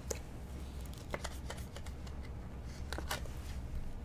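Cardboard 1984 Donruss baseball cards handled and slid against one another: a few short rustles and clicks, over a steady low hum.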